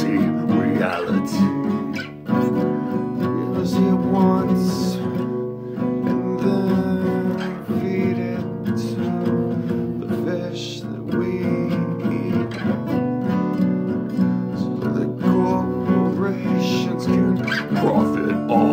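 Acoustic guitar strummed in a steady rhythm, its chords ringing on, as the instrumental part of an original acoustic metal song.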